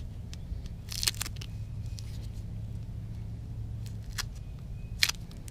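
A few light clicks and rustles from handling a tire plug and its insertion tool in rubber-gloved hands, over a steady low hum that fades about four seconds in.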